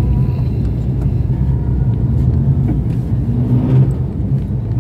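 Car engine and road rumble heard from inside the cabin as the taxi creeps along in traffic. A rising engine note comes in about three seconds in.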